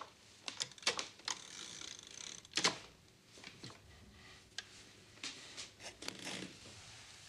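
Irregular clicks and clacks of an old typewriter's mechanism being fiddled with by hand, the loudest about two and a half seconds in.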